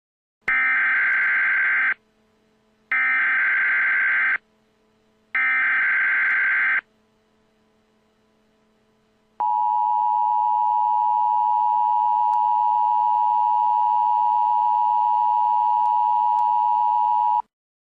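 Emergency Alert System header: three short bursts of SAME data tones, each about a second and a half long with short gaps between, then about eight seconds of the steady two-tone attention signal, which cuts off sharply near the end. The sequence marks the start of an emergency alert message.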